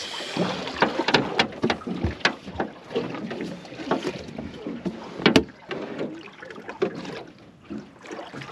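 Irregular knocks, clunks and splashy clatter aboard a small aluminium boat, with one sharp knock about five seconds in the loudest.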